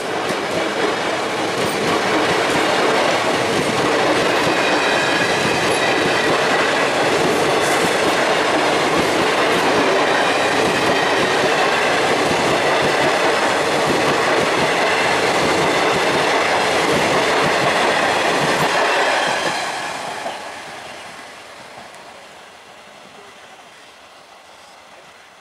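Jangipur Express's ICF passenger coaches passing at speed close by: a steady rumble and clatter of wheels over the rails, which fades away about 20 seconds in as the last coach draws off.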